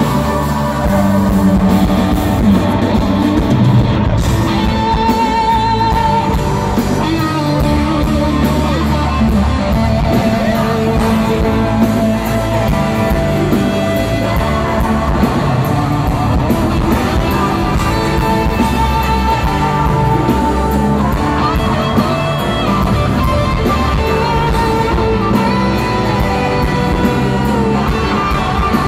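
Live rock band playing in a large hall: electric guitar lead over bass and drums, with singing.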